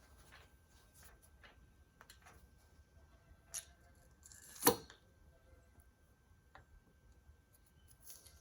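Faint clicks of metal parts being handled while a universal joint's bearing cups are fitted into a driveshaft yoke, with one sharper metallic clack a little past halfway.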